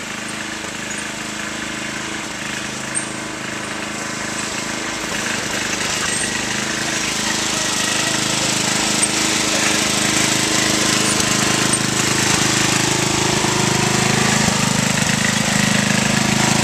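Engine of a Murray 11/36 riding lawn tractor running steadily as the tractor drives, growing gradually louder as it comes closer.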